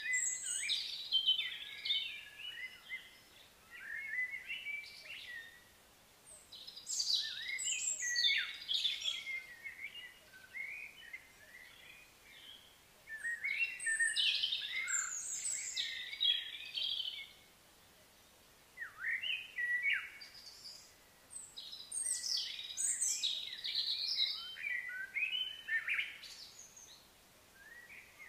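Songbird singing in bouts of quick, high chirping notes, each phrase lasting a few seconds and followed by a short pause, about six phrases in all.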